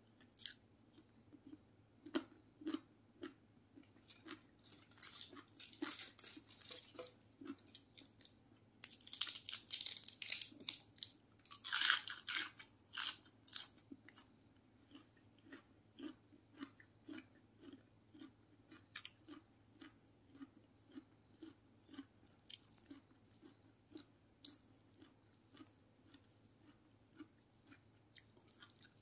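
A person chewing a meal of fried chicken and raw vegetables, steady wet chewing of about two chews a second. Louder crunching comes about five seconds in and again from about nine to fourteen seconds in.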